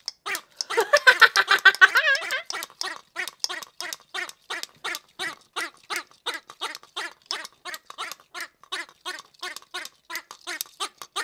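Green rubber lizard squeeze toy making a rapid gurgling, in short pulses about four a second; the sound is loudest and busiest in the first two seconds, then settles into an even pulsing.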